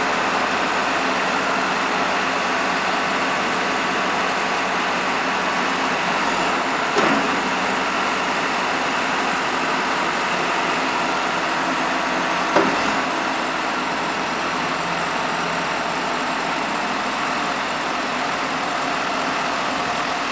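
Rippa R935T mini loader's engine running steadily, with two sharp clanks, one about seven seconds in and another about twelve and a half seconds in.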